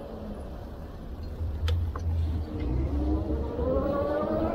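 A motor's whine rising slowly and steadily in pitch from about halfway in, over a low rumble that includes wind on the microphone. There are two sharp clicks shortly before the whine starts.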